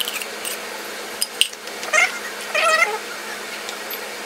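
A cat meows twice about two seconds in: a short call, then a longer wavering one. Around it are sharp clicks and scrapes of a metal spoon against an aluminium foil pan as dressing is stirred.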